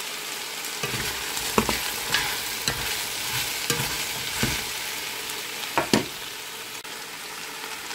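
Ground beef and diced potatoes sizzling in a pot, frying in the meat's own fat with no oil added, with a steady hiss. A spoon stirring them scrapes and knocks against the pot at irregular moments.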